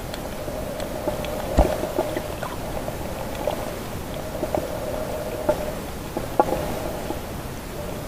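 Muffled underwater sound picked up by a submerged camera in the sea: a steady low drone with scattered sharp clicks and knocks, the loudest about one and a half seconds in and again near the six-second mark.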